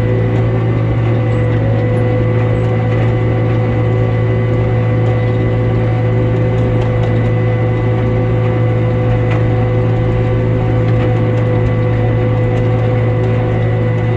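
Tractor and its driven hay machinery running steadily at working speed: a constant low drone with steady whines above it and faint scattered ticks.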